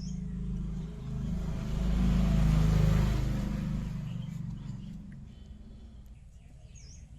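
A motor vehicle passing by, its sound rising to a peak and fading away, over a steady low hum.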